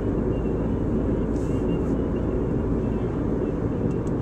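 Steady low rumble of engine and tyre noise heard inside a Toyota Land Cruiser cruising at a constant speed.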